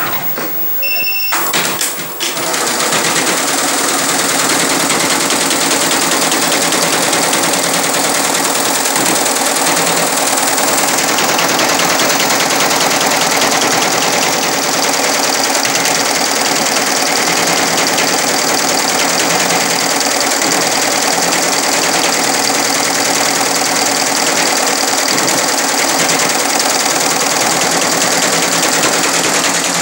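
Multi-head computerized embroidery machine stitching, its needles running in a fast, even rhythm. After a short beep about a second in, the machine starts about two seconds in and keeps a steady level from then on.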